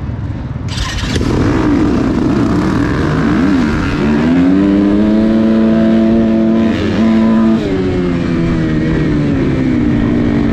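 A field of four-stroke dirt bikes launching at a race start. Engines rumble, then burst loud about a second in. The near bike's engine then climbs in pitch and holds high at full throttle, with a gear change about two-thirds of the way through before the pitch drops.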